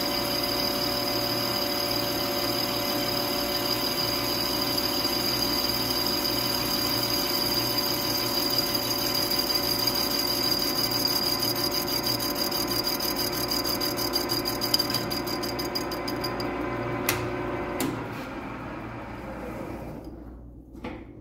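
Metal lathe running while a boring bar cuts inside an aluminum transmission adapter housing: a steady machine hum with a high whine. About 18 seconds in the lathe is switched off and spins down to quiet.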